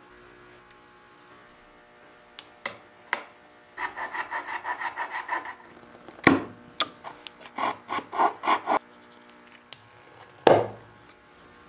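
Steel chisel cutting through freshly glued wood veneer, held against a steel square: a few light clicks, then two runs of quick scraping strokes, about six a second, with sharp knocks about six seconds in and near the end.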